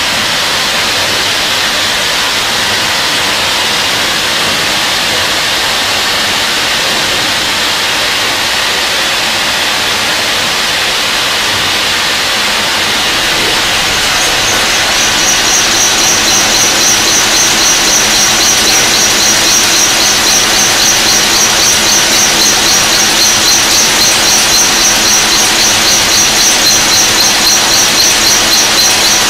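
Burgsmüller L5.4 thread-whirling head cutting the flights of a screw element: a steady hissing rush. About halfway through, a high-pitched squeal joins it, and the sound grows slightly louder with an even pulse.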